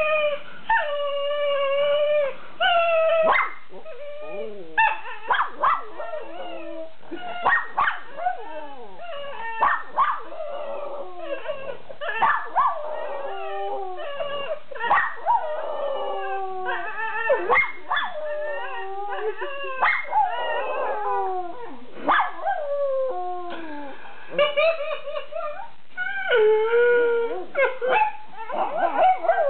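Miniature schnauzer howling, a long string of separate howls that each bend up and down in pitch.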